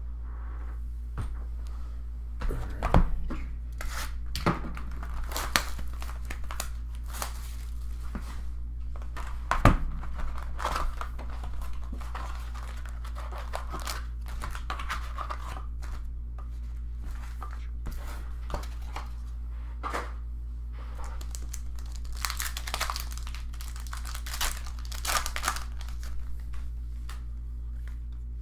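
Foil trading-card pack wrappers being torn open and crinkled, in scattered bursts, with a couple of sharper knocks about 3 and 10 seconds in as packs and cards are handled. A steady low electrical hum runs underneath.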